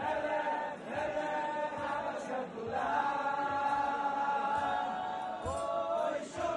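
Many men's voices singing a slow melody together in unison over a band, holding long notes.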